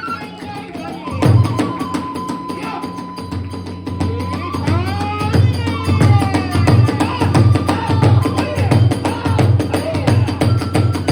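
Kagura hayashi music: drums and a bamboo flute. A loud drum stroke about a second in, a long held flute note with rising slides, then the drums settle into a steady beat of about two to three strokes a second under short flute phrases.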